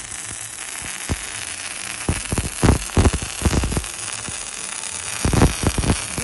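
MIG welding arc burning on steel: a steady frying hiss with irregular crackling pops of spatter, a denser run of pops about five and a half seconds in.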